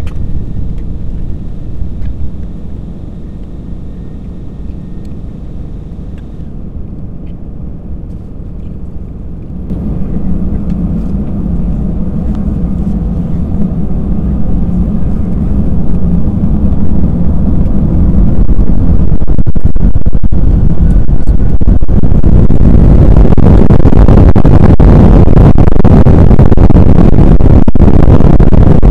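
Airbus A320's jet engines heard inside the cabin: a low steady hum while taxiing, which steps up about a third of the way in and keeps rising as the engines spool up to takeoff thrust, then holds loud and level through the last third as the takeoff roll begins.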